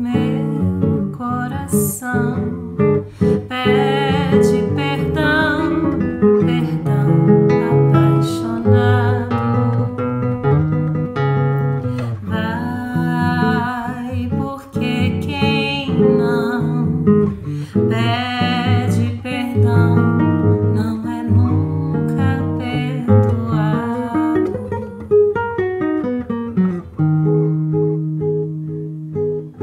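A woman singing a bossa nova ballad, accompanied by fingerpicked chords on a nylon-string classical guitar.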